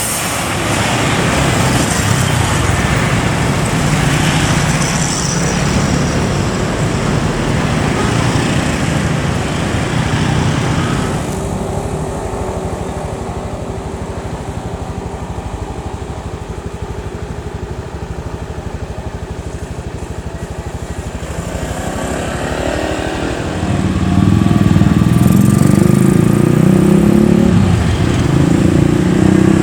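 Engine and road noise of a vehicle on the move. It eases off about twelve seconds in, then comes back louder and deeper about twenty-four seconds in, as the engine pulls harder.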